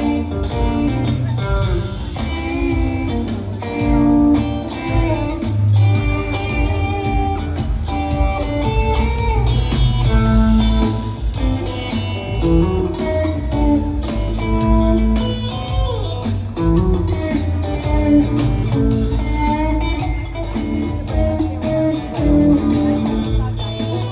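Live rock trio playing an instrumental passage: guitar lines over electric bass and drums, recorded on a phone in the audience.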